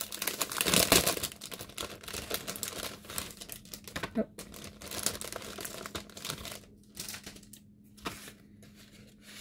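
Clear plastic wrapping crinkling as a small handmade gift packet is handled. The rustle is busiest in the first couple of seconds, then comes in sparser, quieter crackles.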